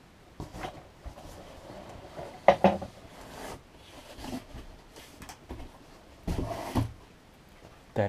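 Cardboard boxes being handled: an RC car's retail box is pulled out of its cardboard shipping carton, with rustling, scraping and a few knocks, the loudest about two and a half seconds in.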